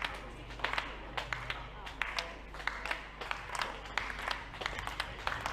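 Spectators clapping along in a slow rhythm with an athlete's overhead hand-claps, about two claps a second, over a murmur of voices.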